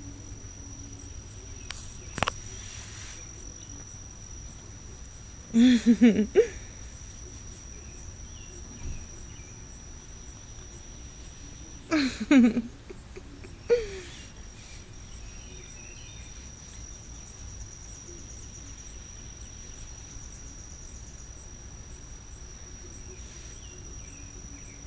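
A cricket trills steadily at a high pitch in the background. A click comes about two seconds in, and short, louder voice-like sounds come around six and twelve seconds in.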